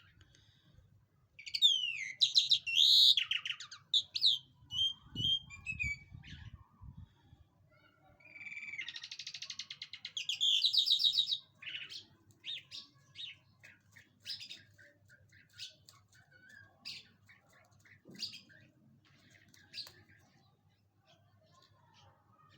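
A lark singing: rapid, varied song phrases and a loud buzzy trill, then a run of short, spaced notes that grow fainter and sparser toward the end.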